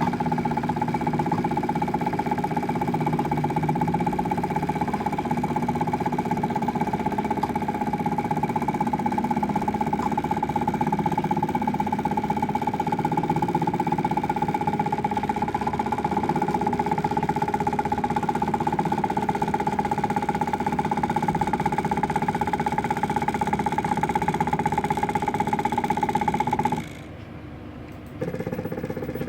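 Motor that drives the arms of a microwave tomograph prototype, running with a steady whine. It stops about 27 seconds in and starts again about a second later at a lower pitch, as the arms move back.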